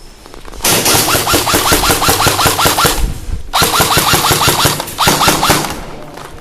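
Airsoft electric gun (AEG) firing rapid full-auto bursts, each shot a quick mechanical clack from the gearbox cycling. Two long bursts are broken by a brief pause about three seconds in.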